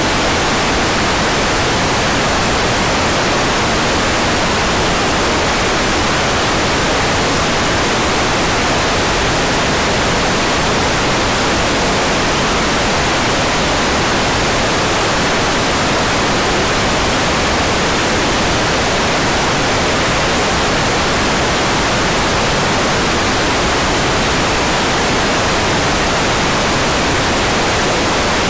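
Hair dryer running continuously: a loud, steady, unchanging rush of blown air.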